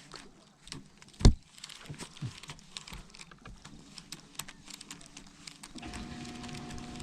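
Fishing tackle handled in a boat: scattered light clicks and taps, with one loud thump a little over a second in. A steady low hum with a faint higher whine begins near the end.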